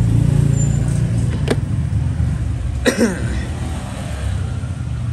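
Steady low rumble of road traffic, with a sharp click about a second and a half in and a louder click about three seconds in.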